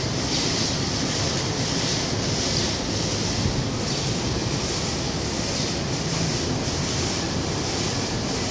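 Steady rushing noise of wind on the microphone, over a low rumble from a distant approaching subway train.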